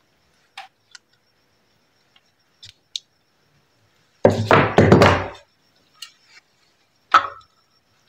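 Hand tools, pliers and a tester screwdriver, knocking and clattering against a galvanized metal sheet as they are picked up and handled. A few faint ticks come first, then a loud clatter about four seconds in that lasts about a second, and one more sharp knock near the end.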